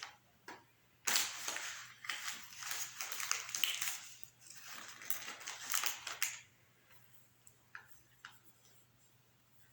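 Dense rustling and crackling noise in a long stretch of several seconds, stopping suddenly, then a few faint ticks near the end.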